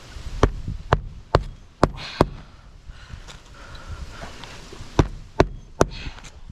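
Hammer driving a roofing nail through an asphalt shingle: five sharp strikes about half a second apart, a pause, then three more near the end.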